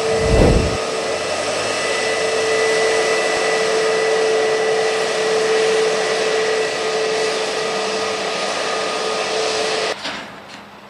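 Airbus A320neo jet engines whining at idle, heard close up: a loud, steady high-pitched whine over a rushing hiss, with a brief low thump just after the start. It cuts off suddenly about ten seconds in.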